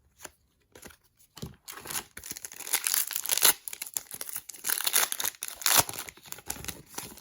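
A trading card pack's plastic foil wrapper being torn open and crinkled, a dense crackling that starts after a few light clicks.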